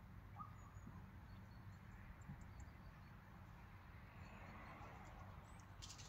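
Faint outdoor ambience: a steady low wind rumble with a soft hiss, and a few brief, faint high bird chirps.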